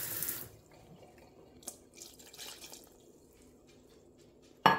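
Kitchen faucet running, shut off about half a second in. Then faint handling sounds, and a single sharp clink of kitchenware near the end.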